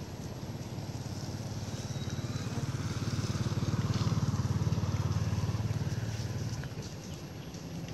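A motor vehicle's engine passing by, a low steady hum that grows louder to a peak about four seconds in, then fades away.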